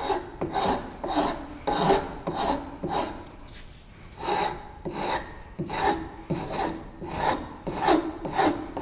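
Metal hand file scraping across the rounded end of a wooden board in short, even back-and-forth strokes, about two a second, with a brief pause about three seconds in. The file is smoothing the coping-saw cut and its tear-out.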